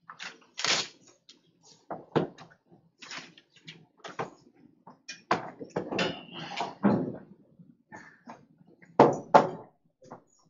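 Irregular knocks, clicks and rustling in a small room, with the loudest knock about nine seconds in.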